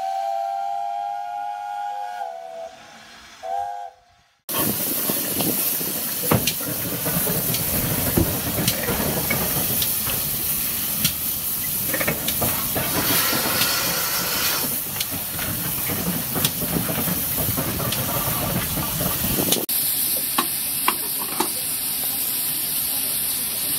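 A short tonal intro jingle for about four seconds. Then steam hissing loudly and steadily from a GWR 6400 class pannier tank locomotive at rest, with occasional sharp clicks.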